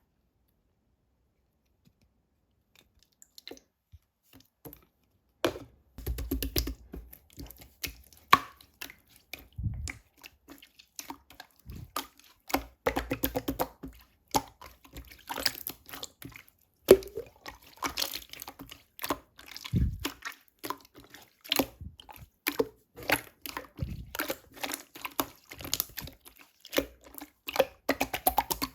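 Clear slime being squeezed and poked by hand, giving rapid wet clicks, pops and squelches. The sounds start about five seconds in, after a near-silent opening.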